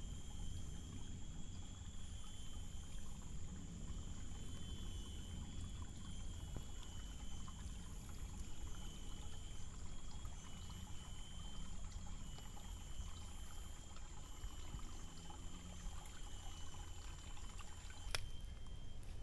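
Water trickling steadily, with a steady high-pitched buzz running over it and a single sharp click near the end.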